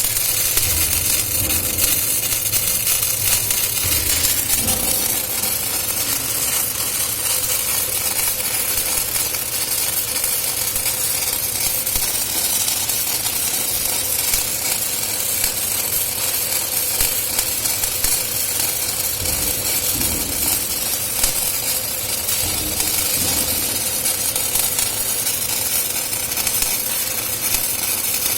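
CO2-shielded MIG welding arc laying a weld on a pipe: a steady crackling sizzle that carries on without a break.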